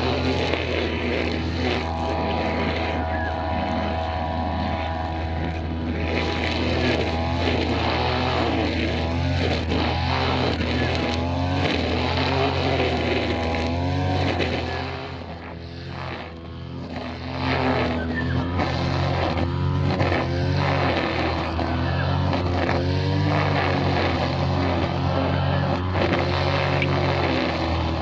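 Brushcutter engine running under load, its pitch rising and falling as it cuts, with a brief drop in speed about halfway through.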